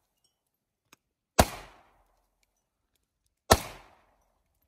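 Two single shots from an AK-pattern rifle, about two seconds apart, each a sharp crack followed by a short echo dying away over about half a second.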